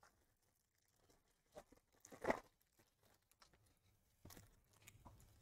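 Foil wrapper of a jumbo baseball card pack being torn and handled: a few faint, short tearing and crinkling sounds, the loudest about two seconds in.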